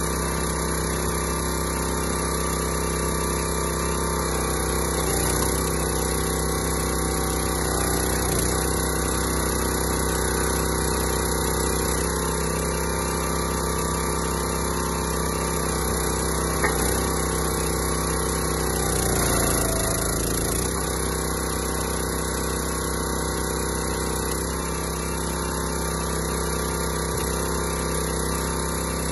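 Small gas engine of a 25-ton hydraulic log splitter running steadily while the ram splits an oak log. There is a single sharp snap a little past halfway, and about two-thirds of the way in the engine note dips briefly as it comes under load.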